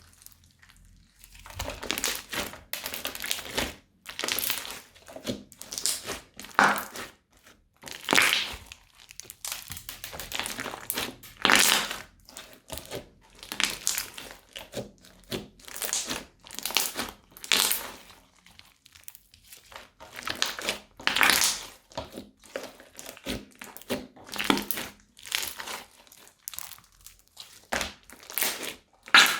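Crunchy slime being squeezed from plastic piping bags and pressed by hand: a long run of irregular crinkling and crackling, one burst after another with brief pauses.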